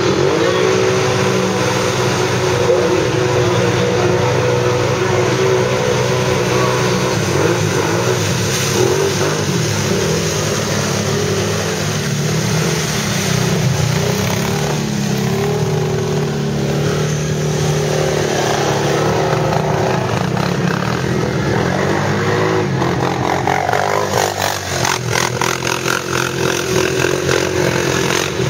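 ATV engines revving hard as quads plough through a mud-bog pit, the pitch rising and falling with the throttle.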